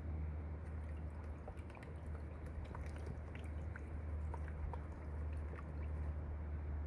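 Gold pan being worked in water: water swishing with scattered small drips, plinks and ticks of sand and gravel through the middle of the stretch, over a steady low hum.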